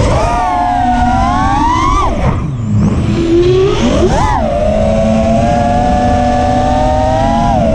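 FPV racing quadcopter's 2207 brushless motors spinning 5-inch tri-blade props, a buzzing whine whose pitch rises and falls with the throttle. The whine sinks away about two seconds in, surges back up around four seconds, then holds fairly steady before dipping near the end.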